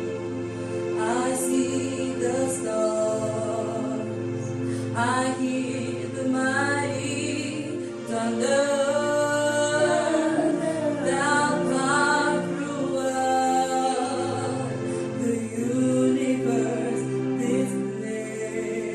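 Gospel praise and worship song: singing over a steady instrumental accompaniment with held low notes.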